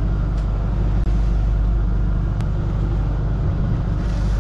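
A fishing boat's onboard engine running with a steady low drone.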